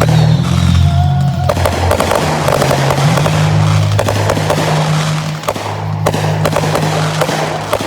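Fireworks going off in quick succession, a dense run of crackles and pops, over music with sustained low notes.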